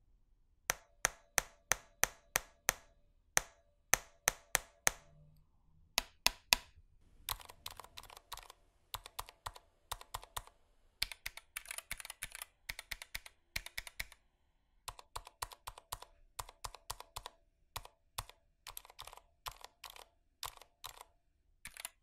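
Durgod Hades 68 aluminium 65% keyboard with Cherry MX Silent Red switches: a string of single hard keypresses over the first seven seconds, then steady typing. Under the keystrokes runs a short metallic ping, which is pretty bad on this board and most noticeable on the single hard presses.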